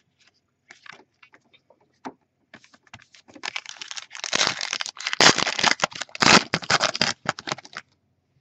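Trading cards being flipped through by hand: a few light clicks at first, then about four seconds of quick, dense clicking and sliding as the card edges snap and rub against each other.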